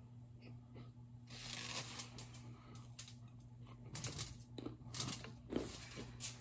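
Baked cornstarch brick crunching and crackling as it is chewed and handled: a crackly stretch starting a little after a second in, then a run of sharp crunches about four seconds in.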